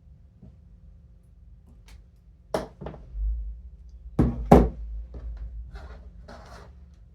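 Objects knocked down onto a work surface: two knocks, then two louder ones a second or so later, followed by lighter clicks and rustling as things are handled.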